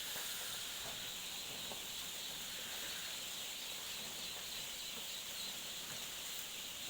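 A crowd of young poultry chicks peeping together, a steady mass of high cheeps with no single call standing out.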